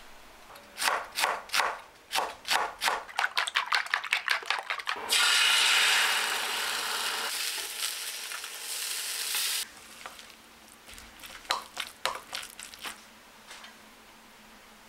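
A kitchen knife knocking on a wooden cutting board, the cuts coming faster and faster. Then imitation crab sticks sizzling in a frying pan for about five seconds, cut off suddenly, followed by a few light clicks.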